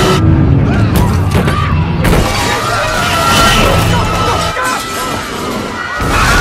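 Movie sound mix of a derailed subway train crashing along a station platform: a heavy low rumble with sharp crashes and shattering glass near the start, about one and two seconds in, under a dramatic orchestral score.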